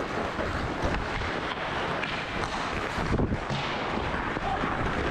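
Hockey skates gliding and carving on rink ice, a steady scraping hiss, mixed with wind rushing over the helmet-mounted camera's microphone as the player skates. A few light clicks sound through it.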